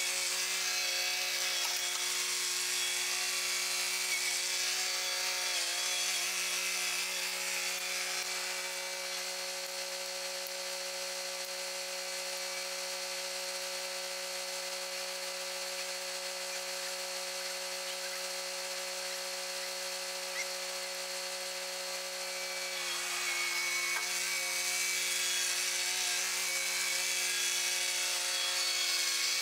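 Kubota compact tractor's diesel engine running at a steady speed. It drops slightly quieter about eight seconds in and picks up again near the end.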